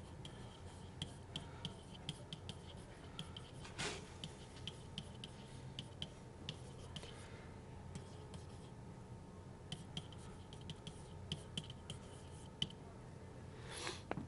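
Faint, irregular ticks and scratches of a stylus handwriting on a digital writing surface, over a low steady hum.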